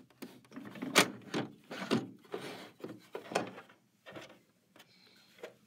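Hands handling the needle-plate and bobbin-cover area of a sewing machine: a series of separate clicks and light knocks of plastic and metal parts with a little rubbing between them, the sharpest click about a second in.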